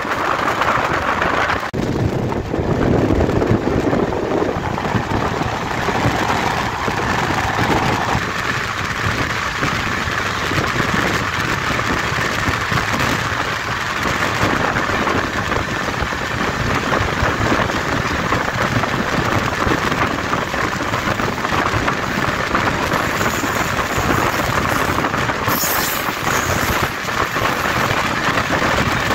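Passenger train running at speed, heard from on board: a steady rush of wheels on the track and wind noise.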